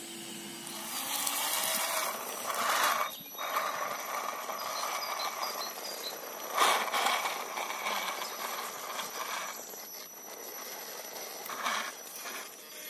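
Psycho'Pat Ventru MOA radio-controlled rock crawler climbing steep rock, its brushed electric motors whining while the tyres scrabble and grind on the stone. There are sudden louder scrapes and knocks, the sharpest about six and a half seconds in.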